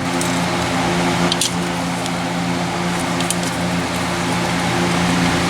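Steady machine hum, like a shop fan, with a few light metallic clicks from hand tools working the 10 mm bolt on the engine bracket.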